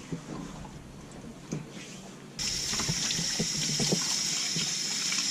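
Tap water turned on about two seconds in and running steadily into a sink, with small knocks of handling before it, as a rabbitfish is being gutted and rinsed.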